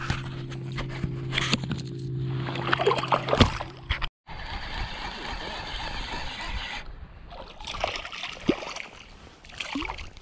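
Shallow saltwater sloshing and splashing right at the microphone as a hooked fish is handled at the surface, with small splashes near the end as a redfish is lifted. A steady low hum runs under the first four seconds. The sound drops out completely for a moment about four seconds in.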